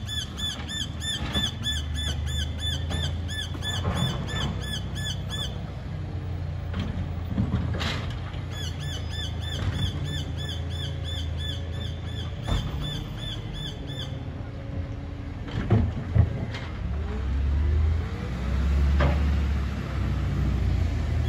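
Garbage truck working a short way off: a low engine rumble that swells near the end, with scattered short knocks and clunks. Over it a rapid high squeaking chirp repeats about three times a second, drops out for a couple of seconds, comes back, then stops.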